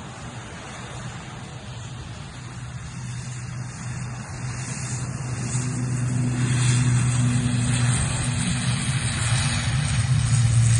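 Twin turboprop airliner's engines and propellers droning steadily as it rolls down the runway, growing steadily louder.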